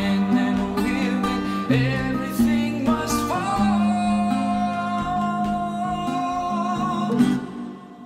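Acoustic guitar strummed in a steady rhythm under a man's singing voice holding long notes. Near the end the guitar stops and the music drops to a softer held note.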